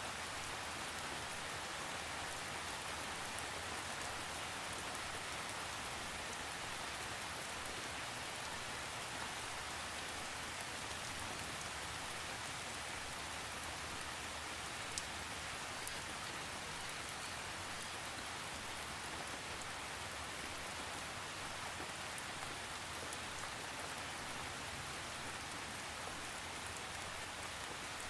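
Steady rain falling, a continuous even hiss with a few individual drop ticks and no thunder.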